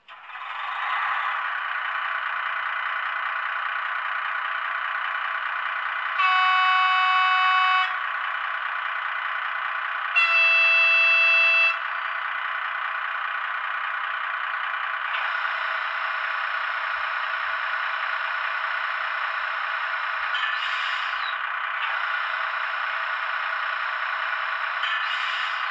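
Sound decoder in a PIKO model of a DB class 245 diesel locomotive, played through its small onboard speaker: the diesel engine starts and runs steadily, with two horn blasts, about six and ten seconds in, each lasting under two seconds. About halfway a thin high whine joins the engine sound.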